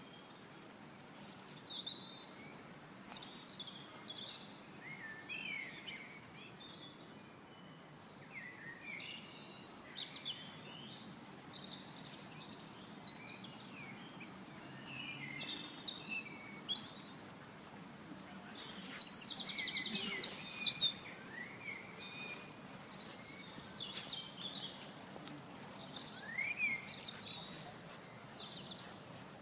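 Several birds singing and chirping over a steady low background noise, with a loud, fast trill about twenty seconds in.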